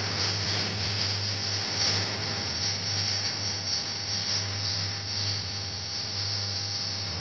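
Steady hiss with a low electrical hum underneath, with no clear music or voices standing out.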